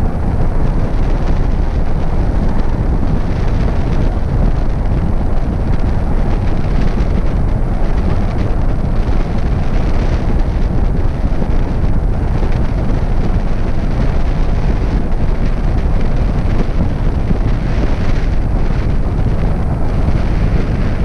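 Steady, loud wind noise buffeting the camera microphone, the rush of air past the camera during a tandem paraglider flight.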